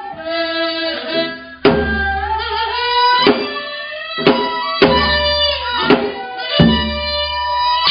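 Traditional Korean court music from a live ensemble: sustained melody lines that slowly bend in pitch, over drum strokes at uneven intervals, several of them with a deep low thud.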